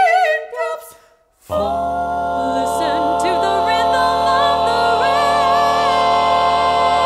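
Mixed a cappella vocal ensemble singing without instruments: a short sung phrase, a brief pause, then from about a second and a half in the whole group holds one full sustained chord, the closing chord of the song.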